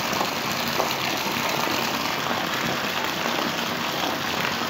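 Steady rushing hiss of water, unbroken and even throughout.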